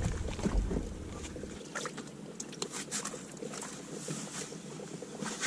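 Wind rumbling on the microphone, dying away after about a second and a half, then a light hiss with a few small scattered knocks.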